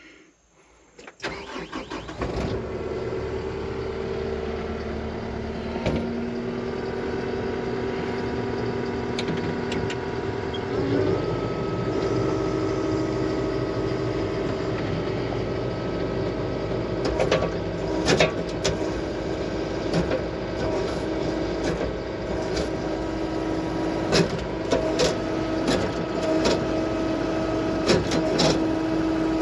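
Skid steer engine starting about a second in, then running steadily, and stepping up in speed about eleven seconds in with a steady whine over it. It is fired up to check a newly replaced hydraulic fitting for leaks. Scattered short knocks sound in the last third.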